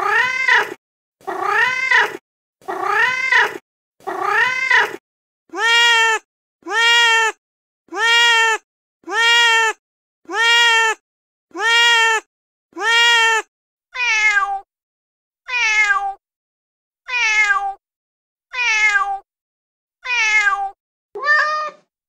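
Recorded domestic cat meows played back one after another, about one a second with silent gaps. They come in three runs of different calls: meows that rise then fall in pitch, then level, steady meows, then meows that drop in pitch.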